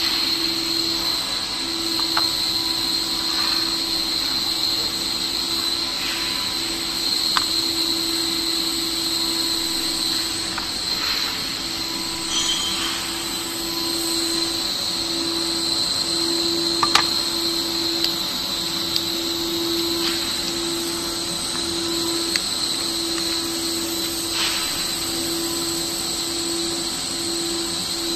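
CNC router spindle running and cutting aluminium composite panel: a steady high whine over a lower hum and noise, with a few sharp ticks along the way.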